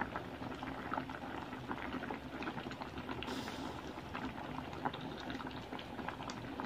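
Pot of sinigang broth with tilapia and pechay boiling hard, a steady bubbling full of small pops. A brief hiss comes a little past three seconds in.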